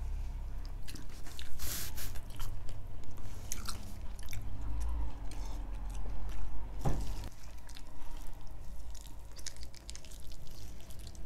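Close-up eating sounds: chewing and biting into steamed, spiced whole chicken, with irregular small crunches, wet squishes and clicks as the meat is torn off by hand and eaten.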